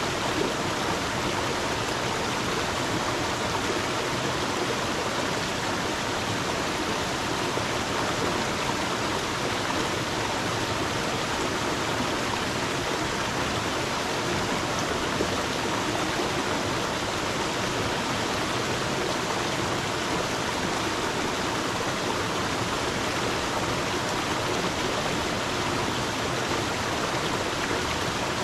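Stream water flowing steadily, an even rushing and babbling with no pauses or changes.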